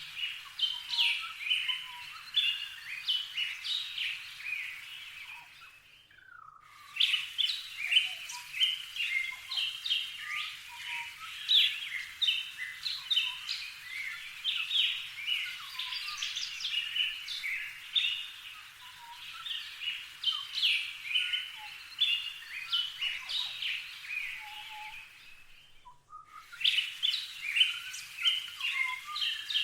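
Many small backyard birds chirping at once, a dense run of short high notes that breaks off for a moment twice.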